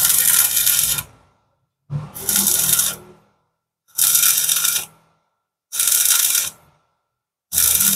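Stick welding electrode arcing on steel square tubing: a crackling arc in about a second-long bursts, five times at roughly two-second intervals, with silence between.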